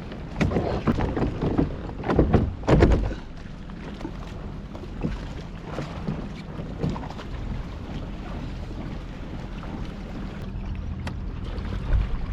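A small boat motor humming steadily on the water, with wind and water noise; a few louder bumps and rustles come in the first three seconds and again near the end.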